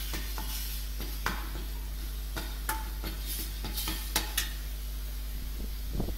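A steel slotted ladle stirring a ground curry leaf paste frying in oil in a stainless-steel kadai: irregular metal-on-metal scrapes and clicks, about a dozen, over a steady sizzle.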